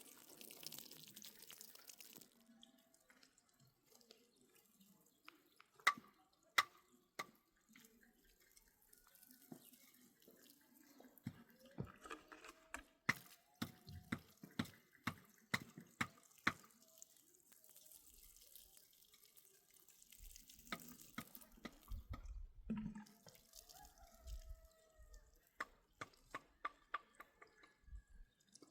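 Water dripping and trickling, with many scattered sharp clicks and knocks, most dense in the middle and near the end, and a few short squeaky tones.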